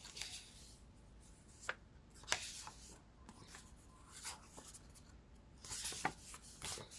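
Tarot cards being handled: a few sharp taps and short rustling slides of the cards.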